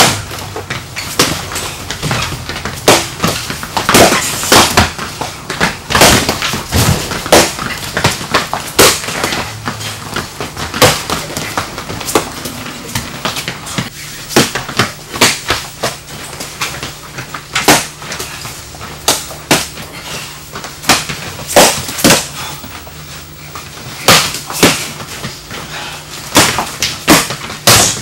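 Scuffle of a multi-attacker baton drill: irregular sharp slaps and knocks from training-baton strikes and feet stamping on a hard floor, at times several a second.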